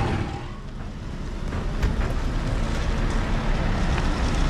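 Road vehicle noise, dipping briefly and then building up again after about a second, with a few faint clicks.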